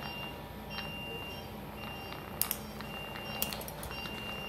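An anaesthesia patient monitor beeps about once a second with the pulse, over a steady low hum of operating-room equipment. Two sharp clicks of steel surgical instruments come about a second apart near the middle.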